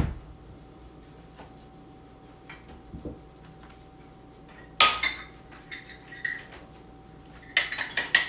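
Metal pots, lids and kitchen containers knocking and clinking as they are moved about on a stovetop and counter. There is a thump at the start, a loud clack about five seconds in, and a run of clinks near the end, over a faint steady hum.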